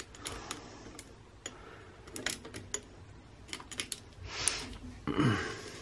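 Light, scattered clicks and taps of a metal nut driver turning a screw in the plastic lower housing of an electric trolling motor, with a brief scraping rustle a little past four seconds in.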